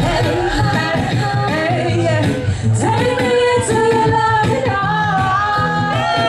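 Live female vocals singing and chanting over a reggae riddim played by a DJ, with a heavy bassline and drums under the voices.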